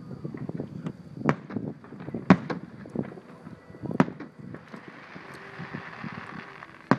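Aerial fireworks bursting at a distance: a string of bangs and pops, the loudest about two seconds in and again at four seconds, followed by a stretch of hiss over the last couple of seconds.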